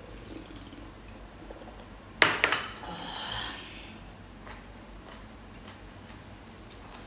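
Tableware clinking at a meal: two sharp knocks of dishes or cutlery a little over two seconds in, followed by a rattling tail lasting about a second and a half.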